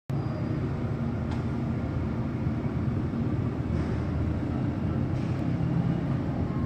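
Steady low rumble of distant city traffic, even in level throughout, with a couple of faint ticks.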